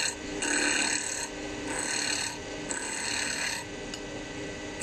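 Hand chisel cutting a spinning wooden bead blank on a small lathe jig, a rough shaping cut, in repeated scraping passes about a second apart. Under it the steady hum of the motor turning the piece.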